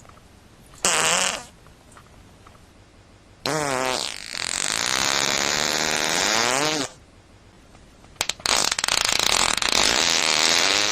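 Three fart sounds in a row: a short pitched one about a second in, a long one whose pitch wavers up and down for about three seconds, and a long raspy one with no clear pitch from about eight seconds in.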